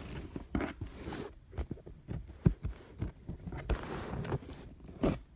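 Packaging being cut and pulled open by hand, with irregular rustling, scraping and clicks. A sharp knock comes about two and a half seconds in.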